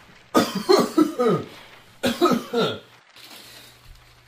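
People coughing in two bouts: several coughs in quick succession starting about half a second in, then a shorter run of coughs about two seconds in.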